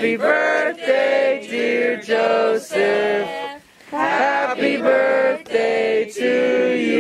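A group of people singing a song together without accompaniment, in steady held notes with a short pause for breath about halfway through.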